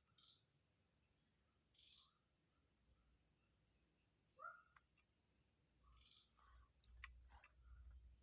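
Crickets or other insects chirring steadily and high-pitched, with a few faint short bird chirps. A low rumble comes in about five seconds in and stops two seconds later.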